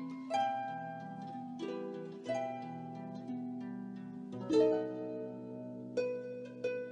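Background music: a slow melody of plucked, harp-like notes, each ringing and fading, over held low notes.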